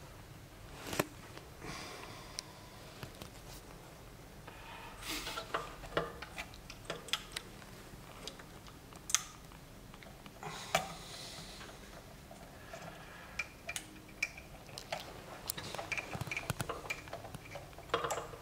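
Scattered small clicks, taps and rustles of hands handling and positioning capacitors on a loudspeaker crossover circuit board, with a sharper click about a second in and a cluster of light ticks near the end.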